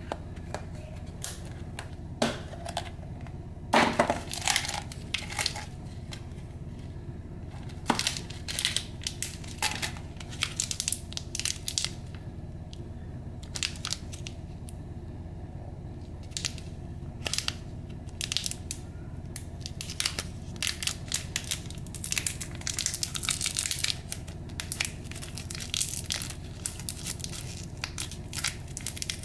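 Plastic candy wrapper crinkling and crackling as fingers handle a sour candy tin and peel a wrapped hard candy open: irregular crackles and clicks, with a few louder ones near the start and a dense run about two-thirds through. A steady low hum lies underneath.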